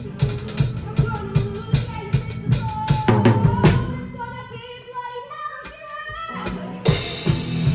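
Drum kit playing a rock beat with the pit band: bass drum and snare hits with cymbals. About four seconds in the drums drop out for a couple of seconds, leaving only sustained pitched notes. They come back in near the end with a crash cymbal.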